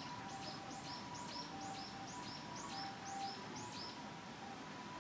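A bird calling: a rapid run of high, arched chirps alternating between two pitches, about four a second, lasting about three and a half seconds.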